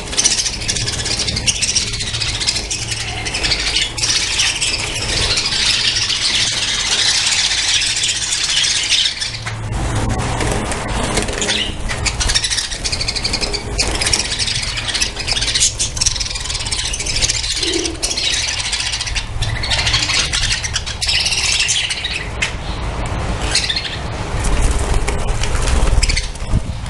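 A colony of budgerigars chattering and chirping without pause, many birds at once, with a low rumble that comes and goes underneath.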